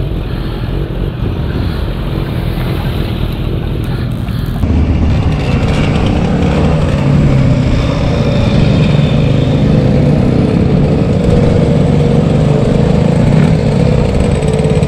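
Motorcycle engine running loud and steady, getting louder and fuller about four and a half seconds in.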